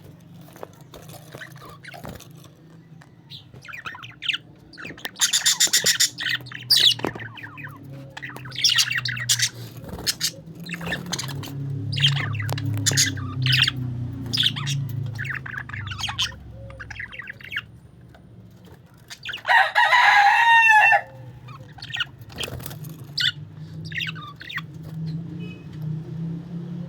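A family of parakeets chirping and chattering in short clusters of calls, with one louder, longer squawk about twenty seconds in, over a low steady hum.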